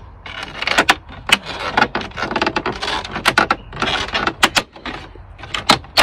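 Plastic dash trim panel of a Volvo VNL truck being worked loose and pulled out by hand: a string of sharp plastic clicks and knocks, with scraping rubs in between.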